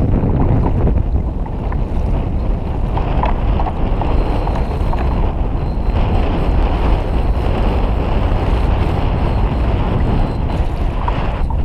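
Strong wind buffeting the microphone, mixed with choppy sea water washing against a kayak's hull.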